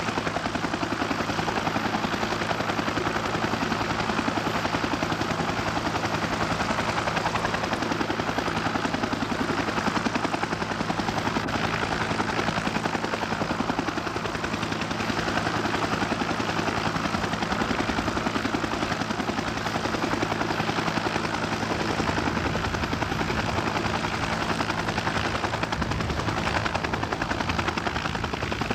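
UH-1 Huey helicopter running on the ground, its two-blade main rotor turning at speed. The blades make a steady, rapid chop over the engine's hum.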